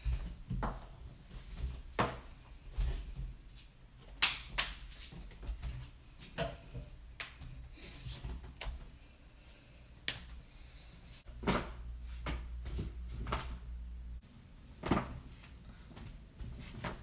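Joints cracking: a series of sharp pops and clicks at uneven intervals, around fifteen in all, with the loudest about four seconds in and again near the end, over a steady low rumble.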